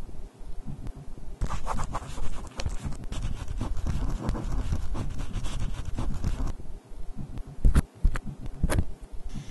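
Pen scratching across paper while a signature is written: a run of quick scratchy strokes from about a second and a half in to about six and a half seconds, then a couple of short single strokes near the end.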